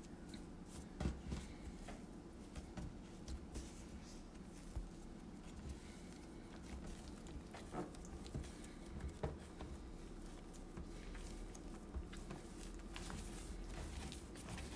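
Hands kneading soft, olive-oiled sourdough bread dough: faint squishing, sticky pats and small slaps at an irregular pace, the sharpest about a second in.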